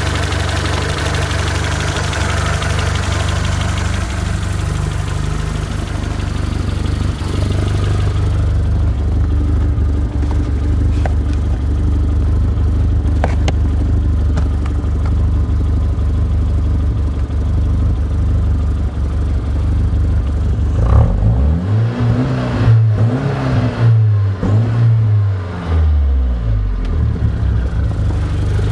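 Nissan CA18ET turbocharged four-cylinder engine idling steadily, then revved up and down several times about three-quarters of the way through before settling back to idle.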